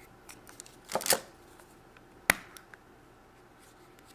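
Quiet handling of a Kinder Surprise toy capsule: a brief plastic rustle about a second in, then a single sharp plastic click a little past two seconds as the capsule is opened.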